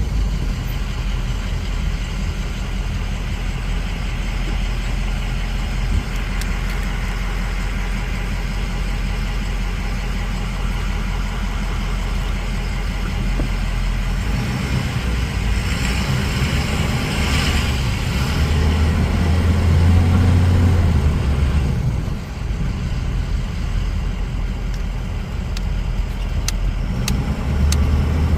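A Ford 6.0 Power Stroke turbo-diesel V8 running, a steady low drone that grows louder for a few seconds about two-thirds of the way in. A few light clicks come near the end.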